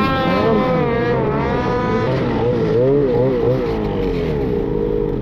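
Snowmobile engine revving, its pitch swinging up and down with the throttle: a quick rise at the start, a steadier high pitch for a second or two, then rapid rises and falls again.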